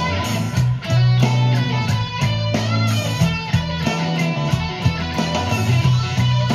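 A Stratocaster-style electric guitar played through an amplifier: low notes held for about a second each, with picked higher notes and chords over them.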